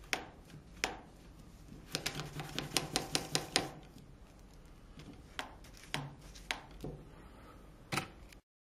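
Small clicks and taps of hands handling a strip of magnets and small wire coils on a tabletop, with a quick run of taps about two to three and a half seconds in. The sound cuts off suddenly near the end.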